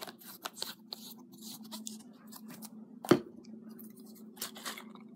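Small clicks and scrapes of craft supplies being handled on a tabletop, with one sharp knock about three seconds in, over a faint low hum.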